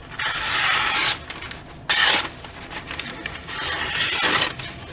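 Knife blade slicing through newspaper three times, a dry rasping rub each pass, the shortest and loudest about two seconds in: a test of the freshly honed edge's sharpness.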